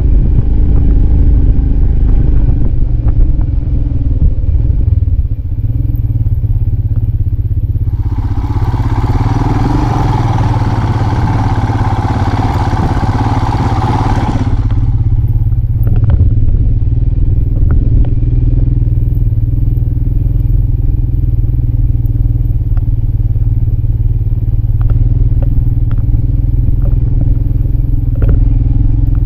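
Motorcycle engine running steadily at low trail speed, a constant low rumble, with scattered clicks and knocks as the bike rides over a rough, stony dirt track. About eight seconds in, a loud hiss rises over the engine for some six seconds and then cuts off.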